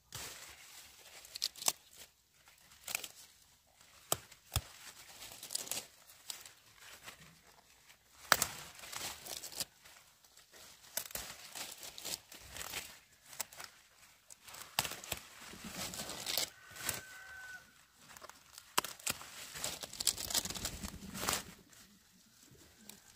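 Irregular tearing, snapping and rustling of leafy vegetables being picked and handled by hand, with many sharp crackles.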